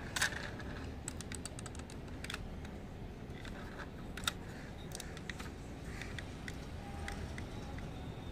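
Small sharp clicks and taps of a diecast model SUV being handled, its opening doors clicking as they are moved. There is a quick run of clicks about a second in, with louder single clicks scattered through.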